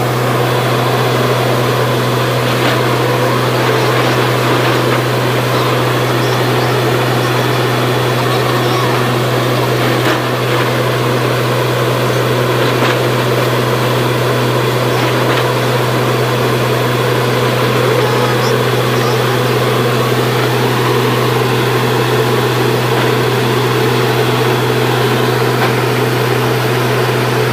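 Truck-mounted borewell drilling rig running with a steady, loud drone while it drills, flushing muddy water and rock cuttings up out of the borehole.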